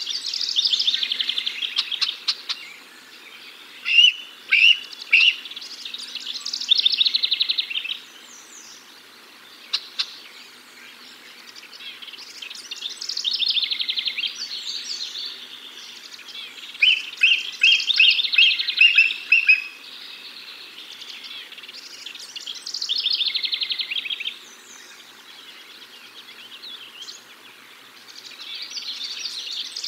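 Wild songbirds singing in the surrounding woods: short phrases of rapid, trilled notes, each about two seconds long, repeating every four to five seconds.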